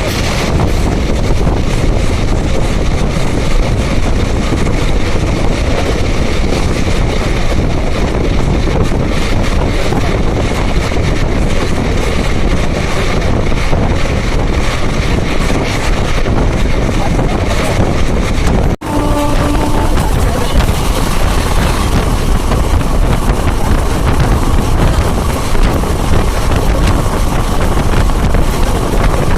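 Express passenger train running at speed, heard from on board as a steady loud rush of wheel and track noise, with wind buffeting the microphone. About 19 seconds in the sound cuts out for an instant, then a short pitched horn note sounds.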